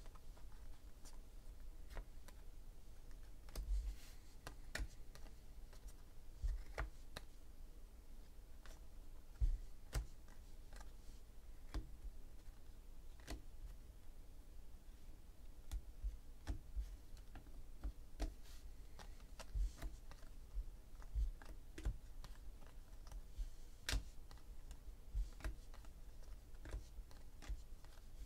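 A stack of 2016 Panini Unparalleled football trading cards being flipped through and slid card by card in the hands, giving irregular light clicks and taps of card edges, with a few soft low bumps.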